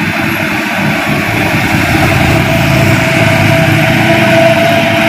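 Mitsubishi Fuso truck's diesel engine pulling a load up a dirt incline. It is a steady low drone that slowly grows louder as the truck comes closer, with a steady whine above it that strengthens in the second half.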